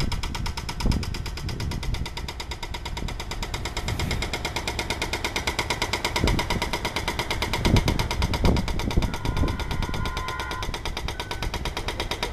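A fast, steady rattling clatter with a few low thumps as a SEPTA Silverliner IV electric train approaches. The train's horn chord starts faintly about nine seconds in.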